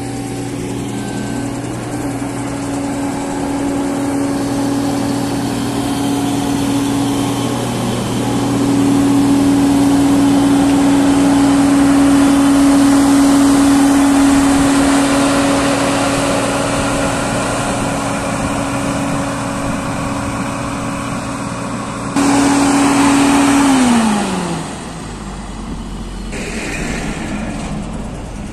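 Wirtgen W 100 H cold milling machine running, its engine and cutting drum giving a loud, steady hum with a grinding rush as it mills off the asphalt road surface. Near the end it briefly gets louder, then its pitch slides down and the sound drops off.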